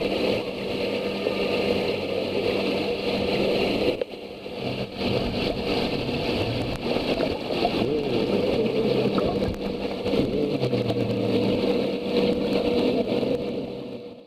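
Swimming pool heard from underwater: a steady low hum under muffled rushing water noise. It drops briefly about four seconds in and fades out at the end.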